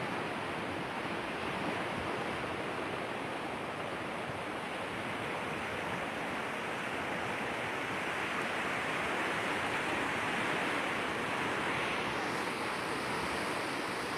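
Swollen river in flood rushing past its bank: a steady, even rush of water.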